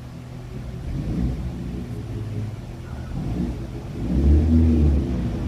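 Low rumbling from the anime episode's soundtrack, swelling louder about four seconds in.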